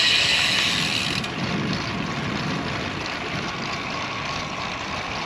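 Wind rushing over the microphone and tyre noise from a road bike being ridden. A high hiss is prominent for about the first second, then drops away, leaving a steady lower rush.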